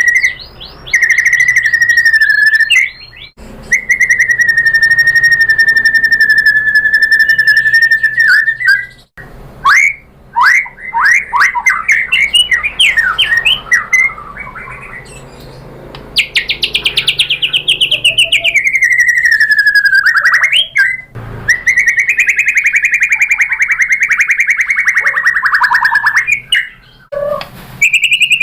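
White-rumped shama (murai batu) singing loudly: long rattling trills held at one pitch for several seconds at a time, one sliding down in pitch near the end, broken in the middle by a quick run of varied chirps and whistles.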